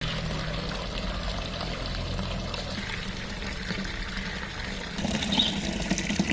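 Water from a pond fountain pouring and trickling steadily into the water below.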